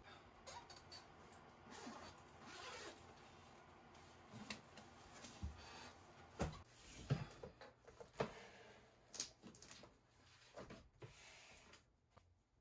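Faint rustling and scattered light clicks and knocks of someone handling things at a desk, papers and a notebook among them, with a few louder knocks about halfway through.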